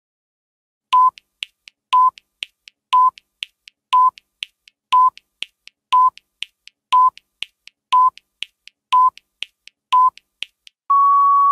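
Countdown timer sound effect: ten short electronic beeps, one each second, with quieter ticks between them, ending near the end in a longer, slightly higher beep as the timer reaches zero.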